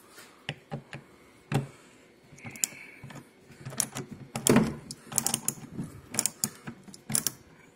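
Irregular clicks and knocks of small hardware being handled, some in quick clusters, as screws and parts are worked loose by hand.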